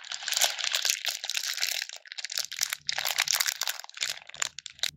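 Dense, crisp crinkling and rustling as hands work through small polystyrene foam beads and handle plastic-wrapped chocolate packets.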